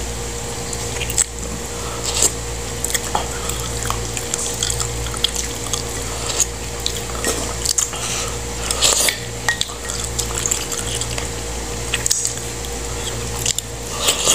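Eating soup from a mug: a spoon clicking and scraping against the mug, with wet slurping and chewing sounds, scattered throughout over a steady low hum.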